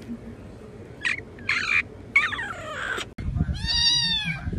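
Domestic cat meowing: a few short, harsh cries about a second in, then a long, clear meow that rises and falls in pitch near the end.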